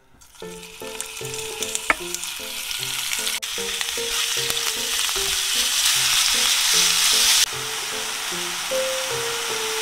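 Ground chicken sizzling as it fries in oil in a nonstick pan and is stirred with a spatula. The sizzle starts just after the meat goes in, builds steadily, then drops off suddenly about three-quarters of the way through.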